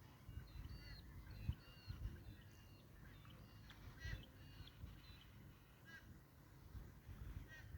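Faint bird calls: many short, scattered chirps, over a low, uneven rumble.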